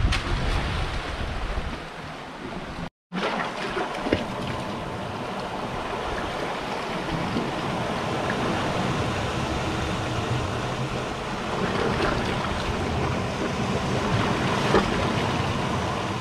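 Sea waves surging and washing over rocks, a steady rushing of surf. It drops out for an instant about three seconds in.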